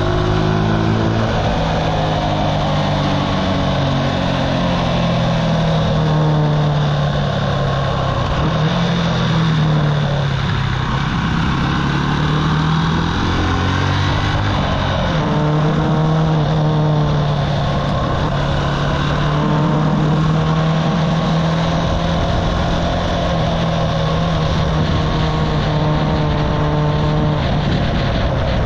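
Archive Motor AM60's buzzy little 125cc engine, heard from the rider's seat. Its pitch rises and falls with throttle and gear changes through the first half, then it holds a steady speed from about halfway, over a constant rush of wind and road noise.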